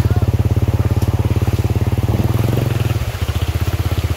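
A vehicle engine running with a fast, even pulsing beat. Around two seconds in there is a short rush of noise, and after about three seconds the engine note settles slightly lower and quieter.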